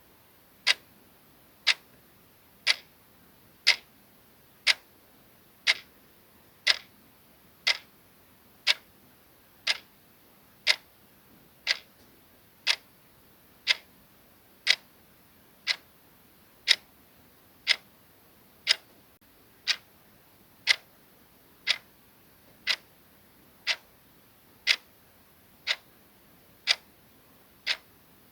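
Soft clock ticking, one short tick every second at a steady even pace.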